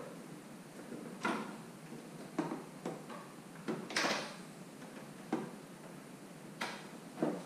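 A JIS screwdriver working screws out of the plastic trunk panel of a Honda Gold Wing: irregular sharp clicks and knocks of tool and plastic. A louder scraping rattle comes about four seconds in.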